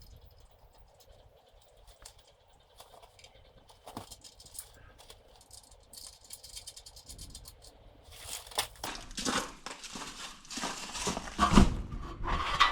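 Boards being handled and shifted during assembly work. A few faint taps at first, then from about eight seconds in a busy run of rustling, clattering knocks, with one sharp knock near the end.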